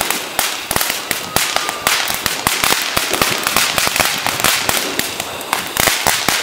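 Ground fountain firework spraying sparks: a steady hiss packed with rapid, irregular crackles and pops.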